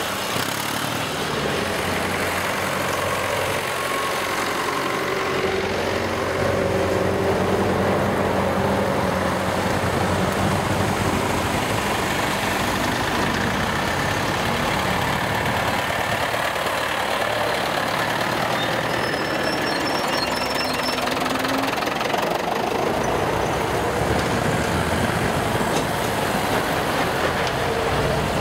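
A line of vintage tractors driving past close by one after another, their engines running steadily, with cars following behind them.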